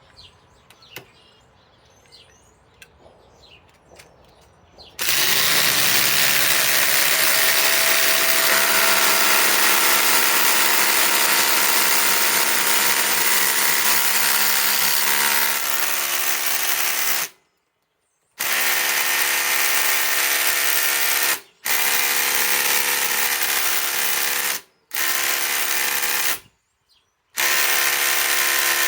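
DeWalt DCF840 cordless impact driver hammering a 10-inch TimberLOK screw into tough wood. It starts about five seconds in, runs steadily for about twelve seconds, then stops and starts again in four shorter runs with short gaps between them as the trigger is released and pulled again.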